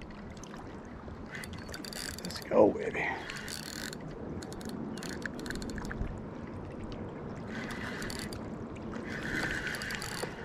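Fishing reel being worked as line is cast and reeled in: small clicks and stretches of whirring from the reel's mechanism, with one brief louder sound about two and a half seconds in.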